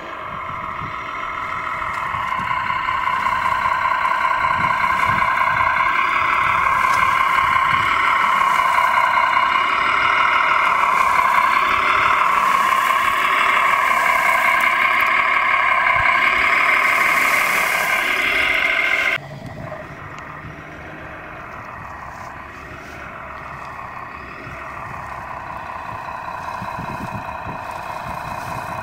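Radio-controlled O&K L25 model wheel loader running: a steady whine of several tones that builds over the first few seconds, holds, then cuts off abruptly about two-thirds of the way through. A quieter, wavering running sound follows.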